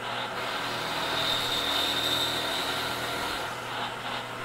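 Vertical milling machine with its spindle running as an end mill plunges down through gummy cast aluminium jig plate, a steady machining noise. A thin high whine joins about a second in and drops away near the end.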